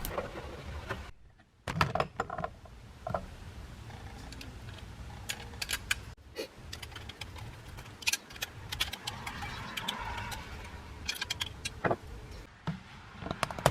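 Thin, malleable metal tubing of a water heater's pilot and thermocouple assembly being handled and bent by hand: scattered light metallic clicks, taps and rattles.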